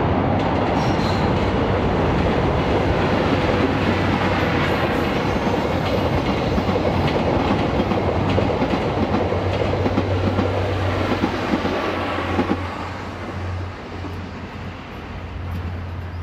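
EF65 electric locomotive and its train of passenger coaches passing, wheels clattering over the rail joints. The sound drops away about twelve seconds in as the last coach goes by.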